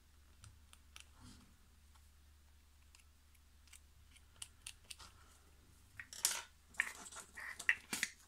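Faint small scrapes and ticks of a plastic pick working superglue and sanding dust into screw holes in a hard plastic RC chassis part. About six seconds in come louder, crisp scratching and rustling as a sheet of sandpaper is handled.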